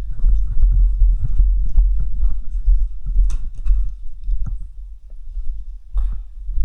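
Footsteps crunching over debris, with irregular knocks over a heavy low rumble from the body-worn camera moving, and one sharper click about three seconds in.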